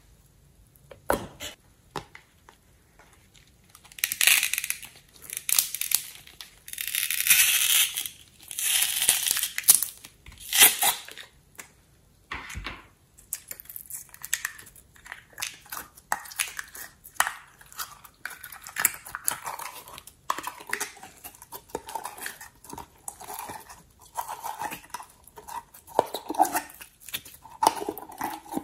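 Hands squishing, poking and stretching slime: sticky squelches, clicks and small pops as it is worked and pulled out of a plastic cup. About four seconds in, a run of louder crackling and rustling lasts several seconds.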